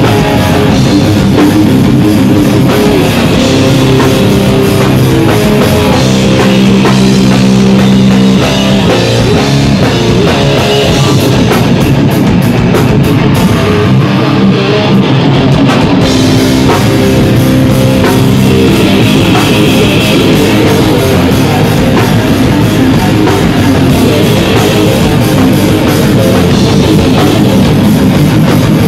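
Live hardcore band playing loud electric guitars and drums, a dense, steady wall of sound.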